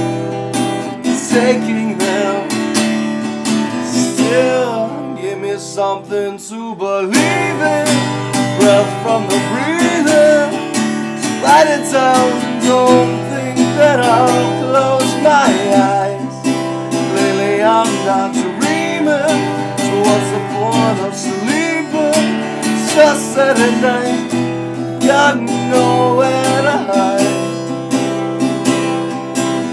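Acoustic guitar strummed steadily while a man sings along, with a brief break in the playing about six seconds in.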